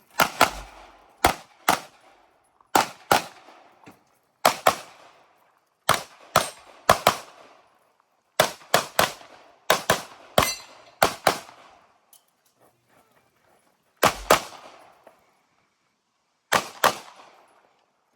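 Pistol shots fired in quick pairs (double taps) at an action pistol match, about a dozen pairs with short gaps between, then a longer lull before the last two pairs. Each shot is a sharp crack with a short echoing tail.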